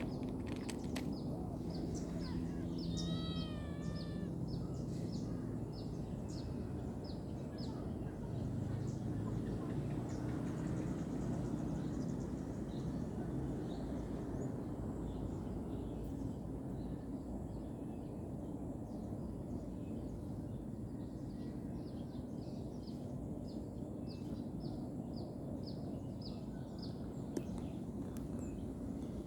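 Outdoor ambience: a steady low rumble with many short, high chirps of birds throughout, and a quick run of about five pitched animal calls about three seconds in.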